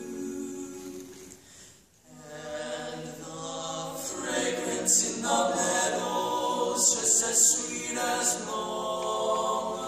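Male barbershop quartet singing a cappella in four-part close harmony, holding chords. The voices break off briefly about two seconds in, then the singing resumes.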